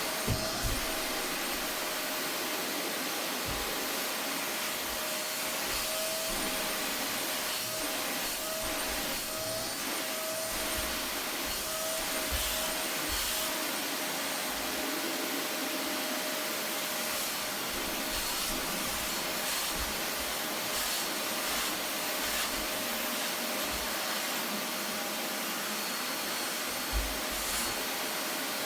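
Vacuum cleaner running steadily, a constant airflow rush with a steady motor whine, while it is worked over sofa upholstery; scattered short low thumps come from the nozzle knocking against the cushions.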